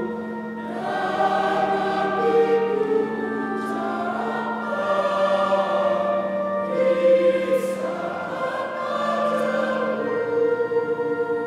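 Mixed choir singing a church hymn in two parts, in long held notes, with accompaniment. Near the end they hold a final chord that begins to fade.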